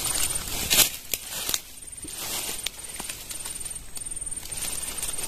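Rustling, a sharp knock about a second in and a few lighter clicks as a long telescopic fishing pole is handled and swung out over swamp water, followed by a steady hiss of the surroundings with a thin high tone coming and going.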